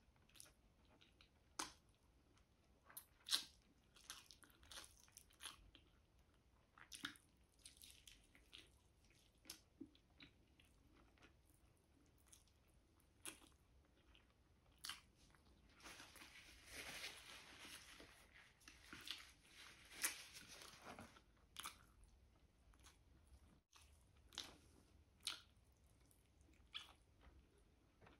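Soft, close-up chewing of braised chicken adobo: wet mouth clicks and smacks scattered throughout, as in a mukbang. A denser, louder stretch of chewing and rustling comes about two-thirds of the way through.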